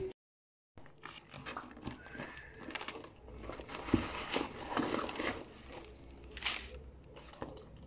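Shredded paper packing filler and plastic wrap rustling and crinkling as hands dig through a cardboard box, in an irregular crackle, with a dull knock about four seconds in. The sound drops out completely for a moment just after the start.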